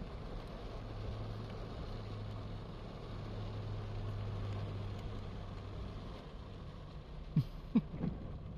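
Steady hiss and rumble inside a car driving through floodwater in heavy rain, with a low hum from about one to six seconds in. A few short sharp sounds come near the end.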